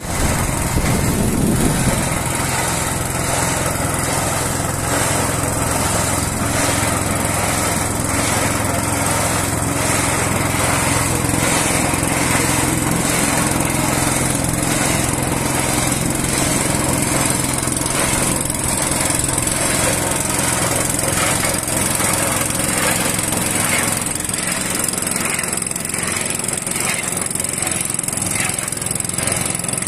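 Small single-cylinder petrol engine on a log splitter running steadily at a constant speed.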